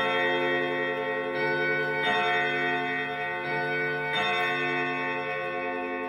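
ODO 30/10 antique chime clock: hammers striking its tuned gong rods in a repeated two-note 'bính bong' (bim-bam) strike, with fresh strokes every second or two and long overlapping ringing.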